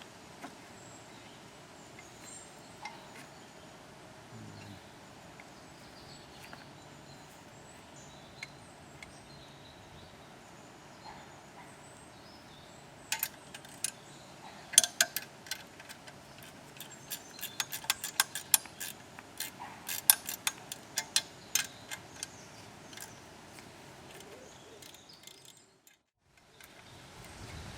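Quiet outdoor background, with a dense run of sharp clicks and taps starting about halfway through and lasting roughly ten seconds.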